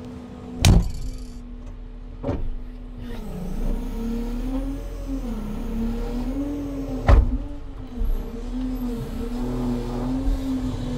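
Timber truck's diesel engine running, its revs rising and falling, with a few sharp knocks scattered through.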